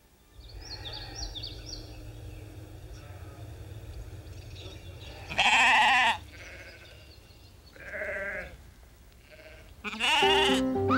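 Sheep bleating: a loud wavering baa about five seconds in, a fainter one a couple of seconds later, and another loud one near the end.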